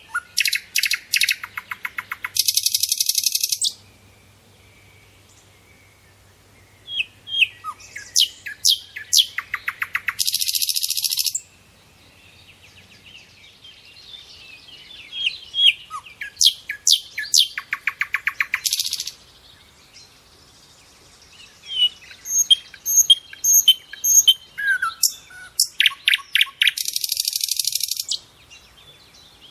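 A songbird singing the same song four times, a few seconds apart. Each song is a run of quick chirps that speeds into a rapid trill and ends in a harsh, buzzy rattle, with fainter chirping between the songs.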